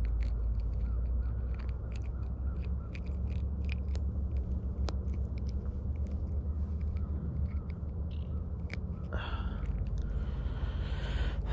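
Hands unhooking a small panfish from an ice-fishing jig: scattered small clicks and rustles over a steady low rumble, with a brief rustling hiss about nine seconds in.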